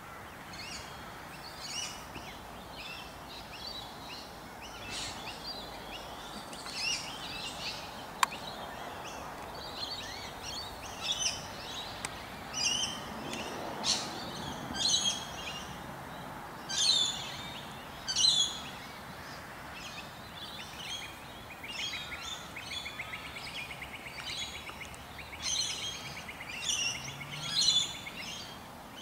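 Small birds chirping and calling over and over, in short bursts, over a steady background hiss, with a rapid buzzing trill in the last third and one sharp click about eight seconds in.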